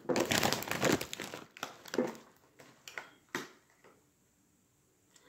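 Doritos chip bag crinkling for about a second and a half, then a few separate sharp crackles as it is handled.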